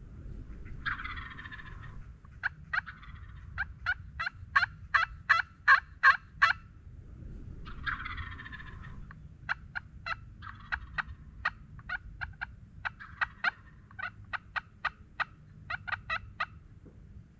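Osceola wild turkey calling: a rattling gobble about a second in and again near eight seconds. Each gobble is followed by a long run of short, sharp calls at about three a second.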